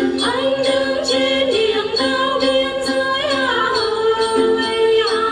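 A woman sings a then song in long, wavering held notes, over the plucked đàn tính lute. A light jingling rhythm keeps time underneath.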